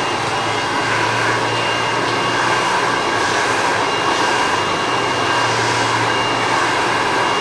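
Hand-held hair dryer running steadily: a continuous rush of air with a thin, steady high whine, blow-drying hair while it is combed upward.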